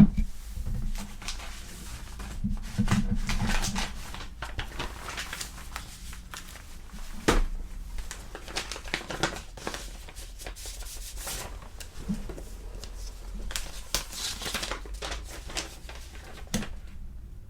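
Paper mail being handled: envelopes torn open and letters rustled and unfolded, an irregular run of crinkles and scrapes with a louder sharp sound about seven seconds in.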